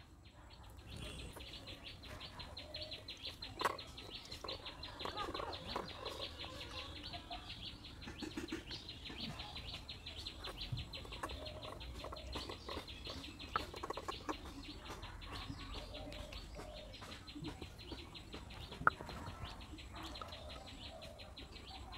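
Faint clucking of chickens, with light splashing and dripping as coriander leaves and chillies are rinsed in a small bowl of water; a few sharper clicks stand out, one near the end.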